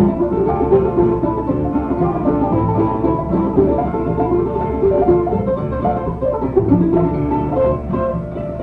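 Bluegrass band playing live: a quick instrumental break with rolling banjo picking to the fore over guitar and bass.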